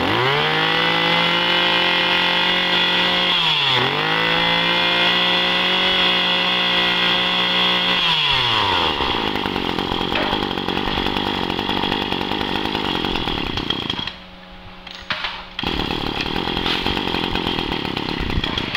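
Small Maruyama 20 cc two-stroke brush-cutter engine revved to high speed. It dips briefly about four seconds in and comes back up, then is let down to a rough idle around eight seconds in. It drops quieter for a moment near fourteen seconds before idling on.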